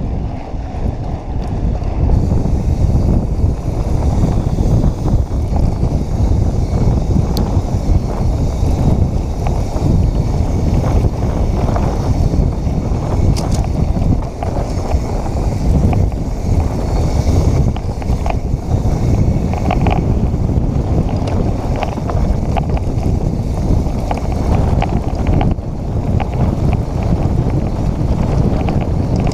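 Wind noise rushing over an action camera's microphone while riding a Santa Cruz Hightower mountain bike along a dirt trail, with continuous tyre rumble and scattered rattles and clicks from the bike.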